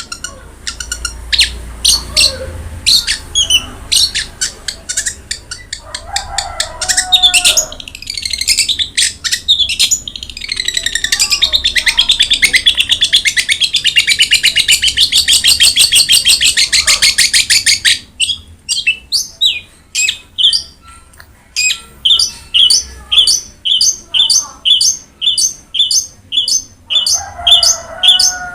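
Long-tailed shrike (cendet) singing loudly in a varied run of quick, sharp notes. Midway there is a long, fast trill, and after it a string of sharp notes repeated about three times a second. A short, lower, rougher call breaks in twice.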